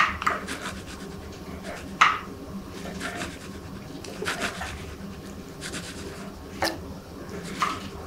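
Chef's knives cutting and scraping through spit-roasted lamb and goat meat on a wooden chopping block: repeated short scraping strokes, with sharp knocks of the blade at the start, about two seconds in, and twice near the end.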